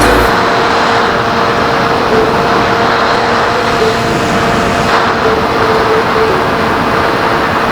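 Onboard sound of a small RC plane in flight: a Turnigy DST 1200kv brushless motor spinning a 10x4.5 carbon propeller, with a steady whine over a loud rush of air on the camera's microphone. The pitch holds nearly steady, with small wavers.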